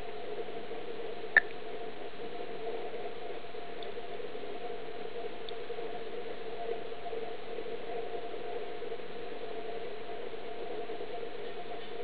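Steady low background hum, with one sharp, short click about a second and a half in.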